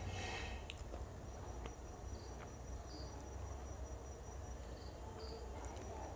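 Quiet room tone: a steady low hum and a thin high whine, with faint short high chirps, two pairs of them, about two seconds in and again near five seconds.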